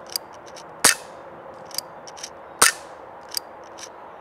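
Two shots from a Sig Sauer P320 .177 pellet pistol, powered by CO2, each a sharp crack, about two seconds apart. Fainter short ticks come between them.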